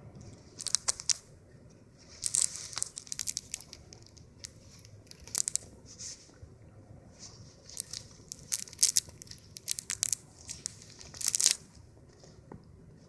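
Several short bursts of crinkling, crackling rustle, like paper or plastic being handled.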